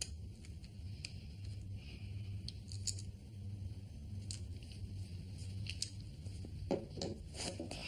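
Light clicks and rustles of objects being handled, over a low steady hum. About seven seconds in there is a louder cluster of clicks and knocks.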